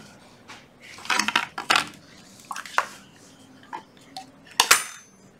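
Hard plastic power-tool housings and a battery pack knocking and clattering on a tiled floor as they are handled, a series of sharp knocks with the loudest near the end.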